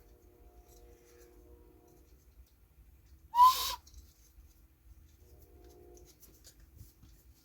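Cuckoo clock bellows pipe sounding a single short breathy note, about half a second long, a little past the middle; otherwise only faint handling noise.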